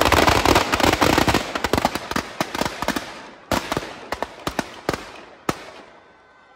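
Firecrackers going off: a dense, rapid crackle for the first two seconds or so, then thinning to a scattering of separate sharp bangs that stop about five and a half seconds in.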